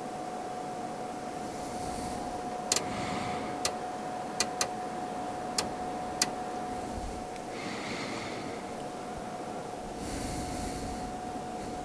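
Radio hiss with a steady tone running through it from a Harman Kardon HK710 tuner whose AM transformers are being aligned, with about six sharp crackles in the first half. The hiss swells twice, about two-thirds of the way in and again near the end.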